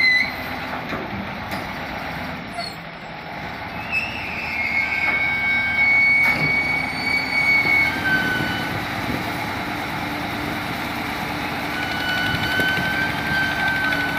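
Heavy machinery running at a boat lift: the steady noise of a crane and heavy truck, with long high-pitched tones coming and going over it, each held for one to three seconds, and a few knocks.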